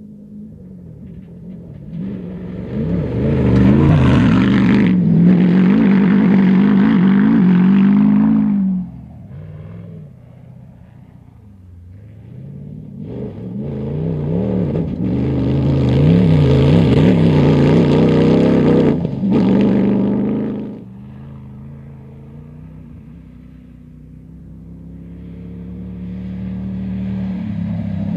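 Cross-country rally buggy engine revving hard as the buggy drives through sand, its note rising and falling with the revs. It comes in two loud stretches that each cut off suddenly, then builds again near the end.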